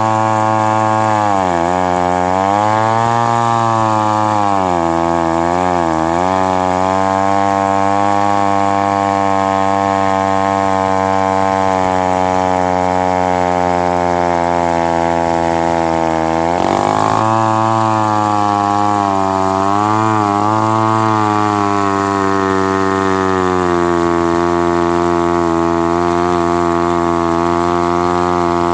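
Mid-1950s Lombard 35 gear-drive chainsaw running hard through seasoned maple, its engine note dipping and recovering several times in the first few seconds as it loads in the cut, then holding steady. About seventeen seconds in it revs up sharply and dips again, and for the last few seconds it runs on at a slightly lower, even pitch.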